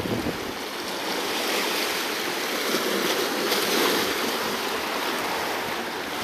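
Sea waves washing over a rock ledge: a steady rush of foaming water that swells about a second in, is loudest around the middle, and eases off toward the end.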